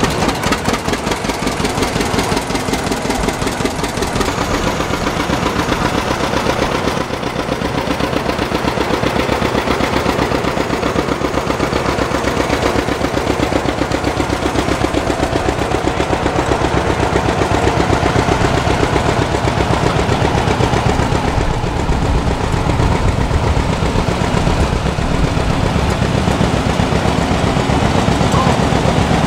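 Vintage farm tractor engines running slowly, led by the rapid, even popping exhaust of a two-cylinder John Deere 60, growing somewhat louder past the middle.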